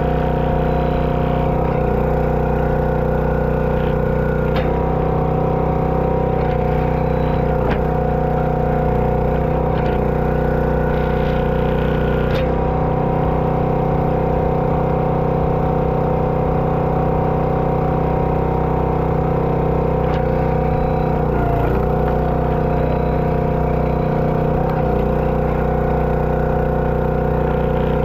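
Hydraulic log splitter's engine running steadily, with a few sharp cracks and knocks as maple rounds split on the wedge.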